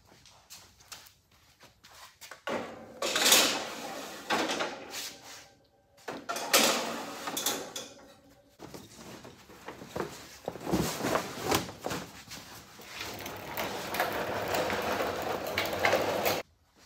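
Metal race-car wheel scales and scale pads being handled and slid into their rolling storage cart: scraping and clunks in two bursts. A longer stretch of scraping and rustling follows, which stops abruptly near the end.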